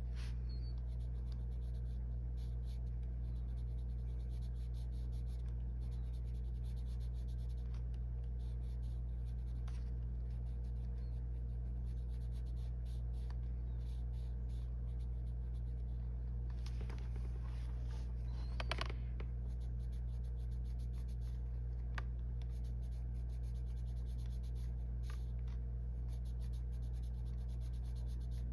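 Arteza colored pencil scratching on paper in short, repeated shading strokes, over a steady low hum.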